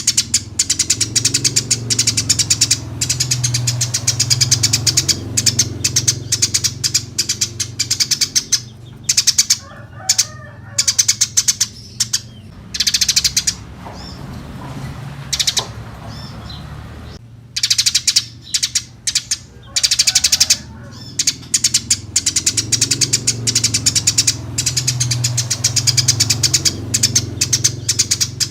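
Eurasian tree sparrow chirping vigorously in long runs of rapid, high chirps, with a short lull about halfway through.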